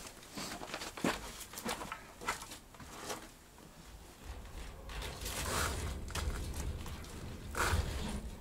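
Rustling, scraping and light clicks of a fine metal mesh being spread out over the ground by hand, with a low rumble on the microphone from about four seconds in.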